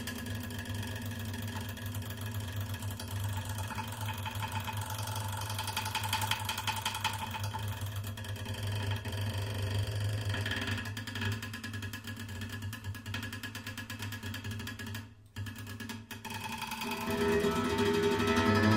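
Acoustic guitar lying flat, its strings mechanically agitated so that they ring as a sustained drone of several steady tones with a fast fluttering grain. The sound thins and almost drops away about fifteen seconds in, then swells again near the end.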